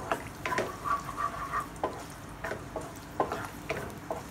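Wooden spatula stirring and scraping chopped garlic in hot olive oil in a non-stick kadhai: a dozen or so short scrapes and knocks against the pan over the sizzle of the garlic frying.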